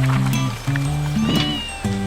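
Background music starts with held bass notes and plucked notes that change every fraction of a second. There is a brief high gliding tone about a second and a half in.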